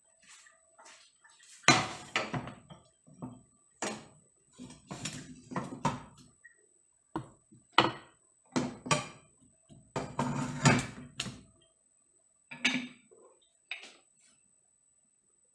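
Kitchen clatter: dishes, pots and cutlery being handled and set down, in irregular clusters of sharp knocks and clinks, loudest about two seconds in and again around ten seconds in.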